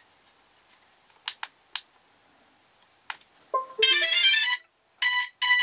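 A few sharp clicks, then electronic alert tones: a short falling run of notes, a longer buzzing tone, and a quick string of same-pitched beeps. These sound as the DJI iOSD mini's firmware upgrade completes.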